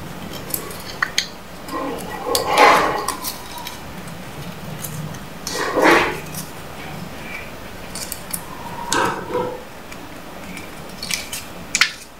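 A folded banknote crinkling and rustling as it is creased and pressed by hand, in short bursts a few seconds apart with sharp crackles near the start and near the end.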